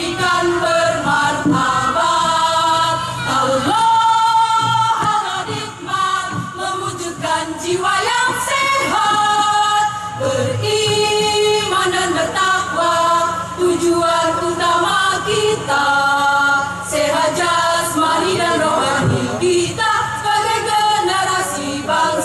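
A women's choir singing in harmony, with several long held chords.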